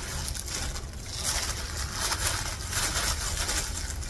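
Clear plastic disposable gloves crinkling and wet, dye-soaked hair squishing as hands work hair dye through it, an uneven rustle that swells and fades.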